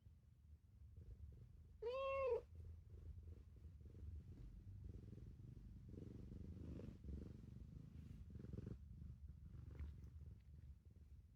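Cat purring steadily and faintly, with one short meow that rises and falls in pitch about two seconds in.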